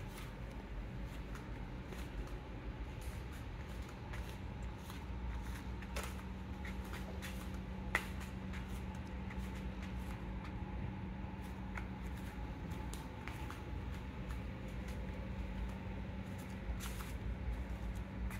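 A steady low hum with faint rustling and scattered small clicks, the sharpest about eight seconds in and a short rustle near the end.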